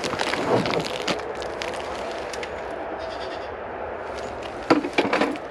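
Goats bleating, with several sharp knocks and clatters, loudest near the end.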